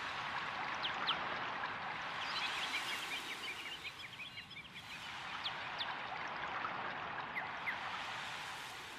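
Outdoor ambience of a steady rushing hiss, with small birds chirping throughout and a quick run of short calls about two to four seconds in.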